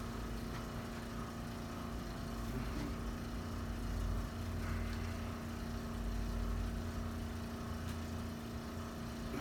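Steady mechanical hum with a low rumble underneath that swells a little partway through.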